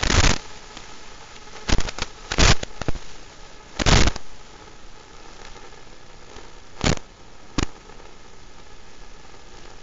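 Steady hiss of static broken by about six short, sharp crackling bursts, the noise track recorded from the FPV video receiver.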